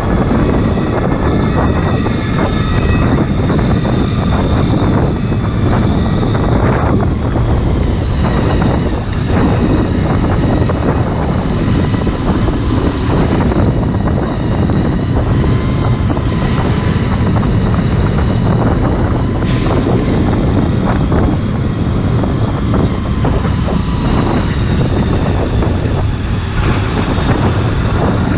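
Sport motorcycle engine running as it filters through motorway traffic, under heavy wind buffeting on the rider's camera microphone.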